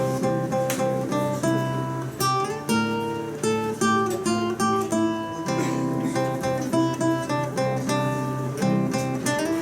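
Acoustic guitar strummed and picked, playing chords in a steady rhythm as live music.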